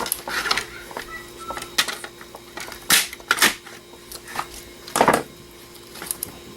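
Irregular sharp clicks and clatter of computer DVD drive parts being handled and taken apart, about six knocks with the loudest about five seconds in, over a faint steady hum.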